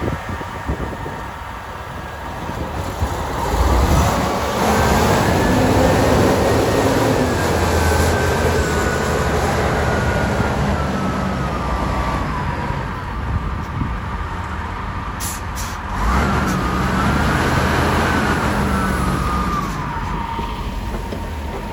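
Heavy diesel snow-removal machinery running hard, with a high whine that climbs and then falls away twice, the second time shorter, as the machine's load rises and eases.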